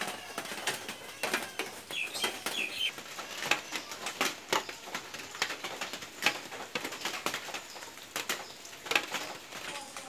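Irregular clicks and rustles throughout, with a few short bird chirps about two seconds in.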